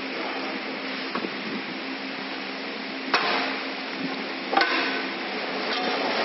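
Steady machine hum with two sharp clicks, about three and four and a half seconds in, as packaging film is handled and threaded through the rollers of a horizontal flow-wrapping machine.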